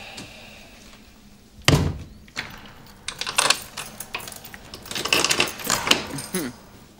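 A front door shuts with a thud, then several locks on it are turned one after another: a run of metallic clicks and rattles lasting a few seconds.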